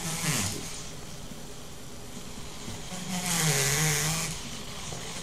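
Hexapod robot's small plastic-geared servos whirring and grinding as the legs move, in a short burst at the start and a longer, louder burst about three seconds in. The servo gears are badly worn.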